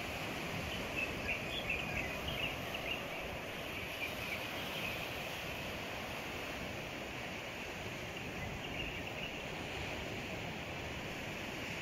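Steady rushing wash of sea surf breaking on a rocky shore, with a run of short high chirps about one to three seconds in and a few more a little later.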